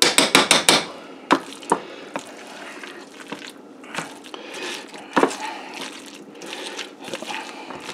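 A metal fork mashing and stirring avocado in a glass bowl: a quick run of clicks and scrapes against the glass in the first second, then scattered taps over soft, wet squishing.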